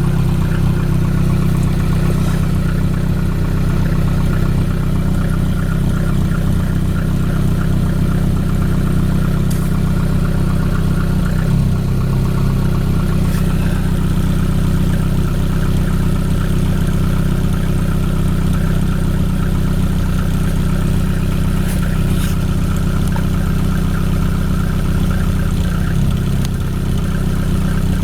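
Petrol engine idling steadily, a low even hum with no revving.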